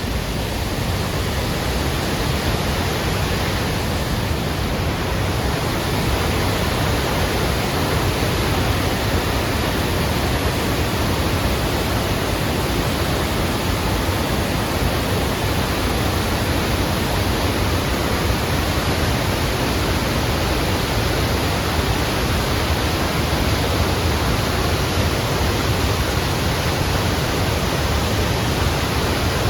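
Steady rush of water pouring over the Lechfall, the weir-waterfall on the Lech river, an even, unbroken noise.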